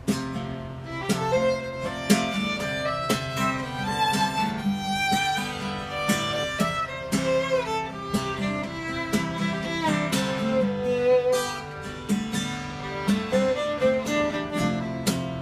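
Fiddle playing a lively melody over a strummed acoustic guitar, an instrumental break with no singing.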